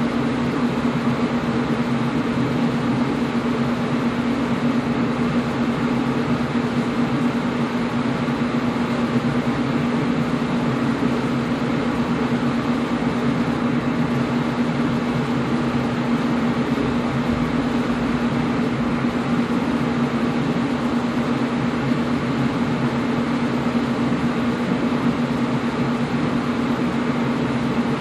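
Air conditioner running steadily: a constant whoosh of air with a steady low hum from the unit's motor.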